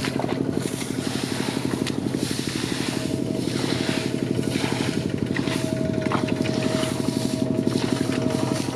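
Small engine running steadily with a fast, even putter.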